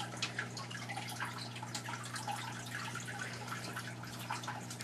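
Quiet room tone: a steady low hum with many faint, irregular soft ticks.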